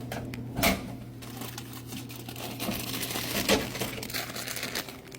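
Crinkling of a Fritos chip bag being handled, with one sharp knock about a second in, over a low steady hum.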